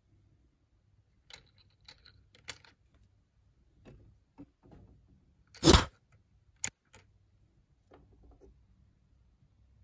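Small plastic clicks and taps as miniature toy kitchen pieces are handled, with one louder knock a little past halfway.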